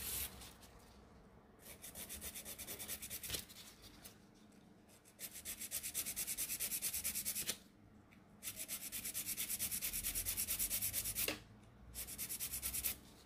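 Hand nail file rasping across a cured gel nail in rapid back-and-forth strokes, in four runs with short pauses between them: the nail is being filed at a bevel to shape a ballerina tip.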